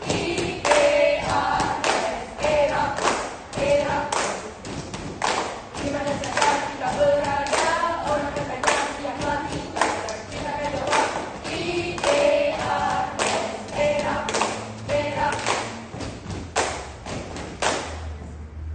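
A group of young voices singing together over a steady beat of stamps and claps, about three a second. The beat and singing stop shortly before the end.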